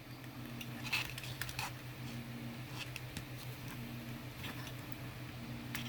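Scattered small plastic clicks and scrapes as a pry tool works along the seam of a Nintendo Switch Joy-Con's back shell, over a steady low hum.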